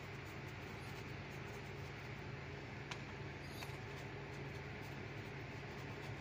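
Faint steady low hum, with a sharp click about three seconds in and a faint short squeak soon after.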